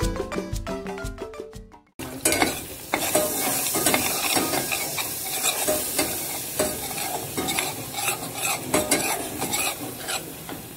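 Butter and flour sizzling in a stainless steel saucepan while a metal spoon stirs and scrapes the pan bottom with frequent clicks, as a roux cooks. A marimba tune plays and fades out in the first two seconds before the sizzling starts.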